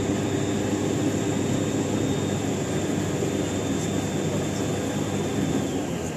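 Water taxi's engine running steadily under way, a constant low drone mixed with the rush of water and air past the boat. A thin high whine slides down in pitch near the end.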